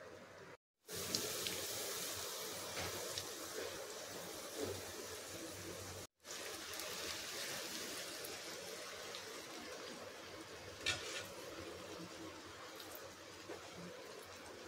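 Steady rushing noise like running tap water, with a few light clicks; it drops out briefly twice.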